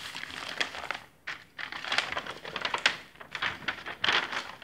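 Large paper sewing-pattern sheets rustling and crinkling as they are unfolded and turned over by hand, in several bursts with short pauses between.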